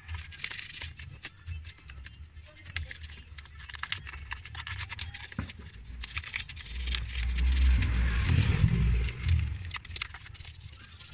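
Toothbrush bristles scrubbing wet engine parts, a run of quick scratching strokes. A deep rumble swells for a couple of seconds past the middle.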